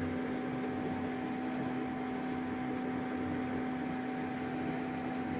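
A steady electric hum, with one constant low tone and a fainter higher one, over a soft even hiss.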